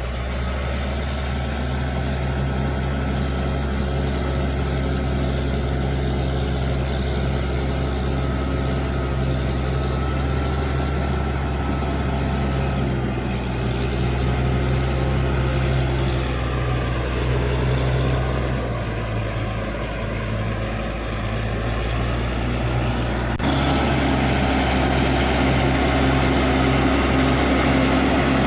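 Caterpillar D6G bulldozer's diesel engine running steadily under load, its pitch sagging and then recovering midway. The sound changes abruptly a little over 23 seconds in, louder afterwards.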